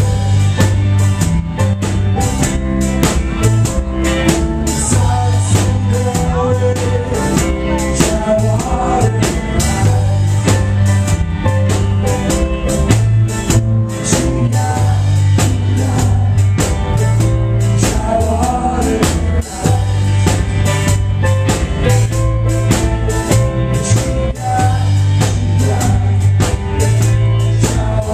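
Live rock band playing: electric guitars, bass and drum kit with a singer.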